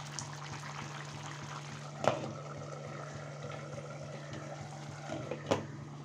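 Thick chicken curry gravy bubbling at a simmer in a pan, over a steady low hum. A sharp clink about two seconds in, and a glass lid clinking down onto the pan near the end.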